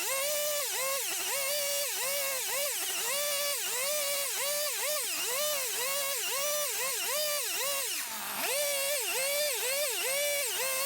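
A high-revving power tool, the pitch dipping and recovering about twice a second as it is pressed into the wood again and again, with one deeper dip around eight seconds in. It is texturing the bottom of a carved wooden axe to hide the nicks left by the chainsaw.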